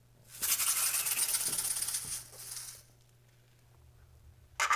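A dry, rasping rattle made of many fast ticks lasts about two and a half seconds, and a shorter burst of the same rattle starts near the end.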